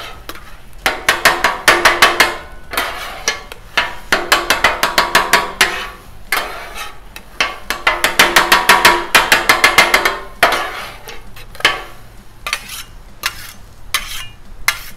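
Two steel griddle spatulas chopping chorizo and eggs against the steel flat top of a Blackstone griddle: rapid ringing metal-on-metal strikes, about six a second, in three bursts of two to three seconds each, then scattered taps and scrapes near the end.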